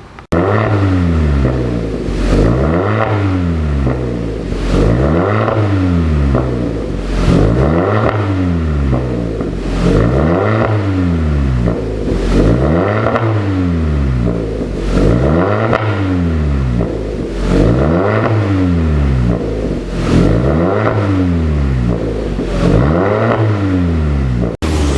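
Kia K5 1.6 turbo four-cylinder engine revved through an aftermarket dual variable exhaust, blipped up and let fall back about every two and a half seconds, around nine times in a row.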